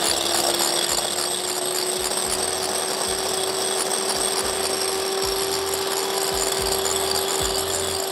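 Electric hand mixer running steadily, its beaters whipping egg whites in a glass bowl toward stiff peaks. It gives one steady motor tone, with a few low knocks now and then.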